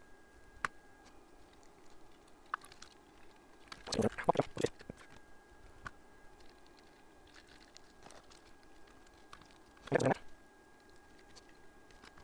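Small clicks and rustles of tools and parts being handled on a workbench, in two short bursts about four and ten seconds in, with a few lone ticks, over a faint steady high tone.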